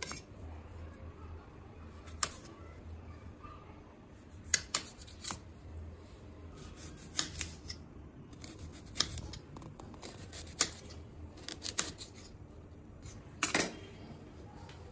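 Small kitchen knife cutting through tomatoes on a steel plate, then through an onion on a stone counter: a sharp click every second or two as the blade cuts through and knocks on the surface, over a low steady hum.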